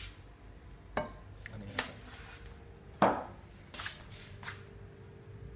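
A stainless steel milk pitcher knocking on a wooden table as it is set down and handled: a few sharp knocks, the loudest, with a deep thud, about three seconds in, and two softer ones near the end.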